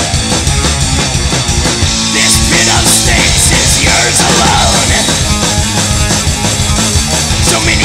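Black/thrash metal recording: distorted electric guitars and bass over a drum kit with repeated cymbal crashes, an instrumental passage with no vocals. About two seconds in the music gets a little louder and a higher lead line with bending notes comes in.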